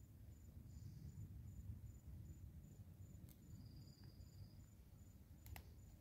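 Near silence with an insect chirping faintly in a steady high pulse about twice a second, a short high trill in the middle, and a couple of faint clicks over a low rumble.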